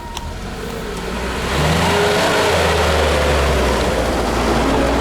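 Off-road vehicle's engine revving up about a second and a half in and held at high revs under load, with a loud rushing noise over it.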